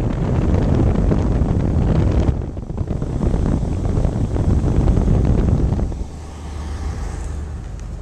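1953 Cadillac's 331 V8 idling with its clutchless air-conditioning compressor turning, under an uneven rumble of wind on the microphone. The rumble eases about six seconds in.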